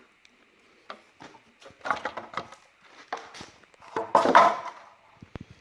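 Clanks and knocks of metal engine parts being handled and set down during the teardown of a Chrysler 400 V8, with two louder bursts of clatter about two seconds and four seconds in.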